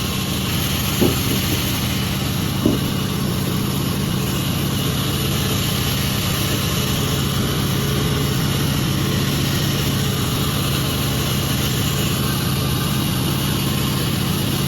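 Sawmill machinery running steadily at a constant pitch, with two short sharp knocks about one second and nearly three seconds in.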